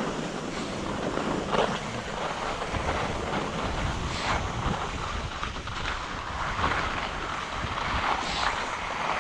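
Wind rushing over the microphone on a downhill run on snow, with the hiss of edges scraping the snow swelling several times.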